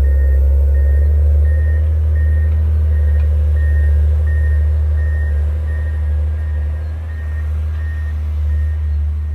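John Deere 670 GP motor grader's diesel engine running steadily under a backup alarm beeping about twice a second as the grader reverses.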